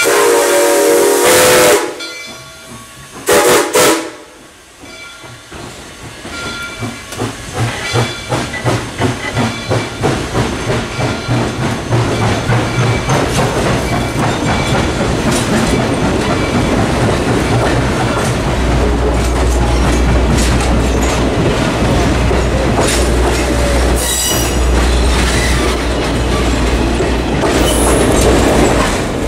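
Susquehanna 2-8-2 #142's Reading six-chime steam whistle: a long blast that ends about two seconds in, then a short toot. Then the passenger train rolls past, its wheels clicking over the rail joints, building up and then staying loud and steady as the cars go by.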